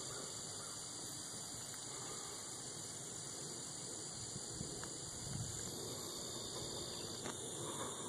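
Steady high-pitched chorus of insects, unbroken throughout, with faint low rumbles underneath.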